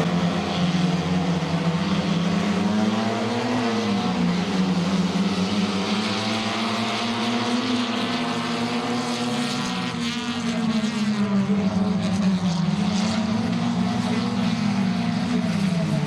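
Several 1100 cc-class racing engines running together at high revs, their pitch rising and falling over and over as they accelerate and back off.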